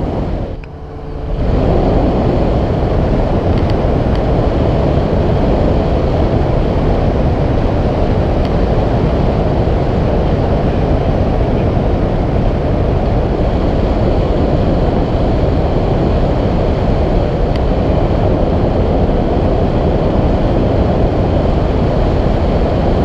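Steady rush of airflow buffeting the microphone of a camera mounted on a tandem hang glider in flight, a dense low rumble with a brief lull about a second in.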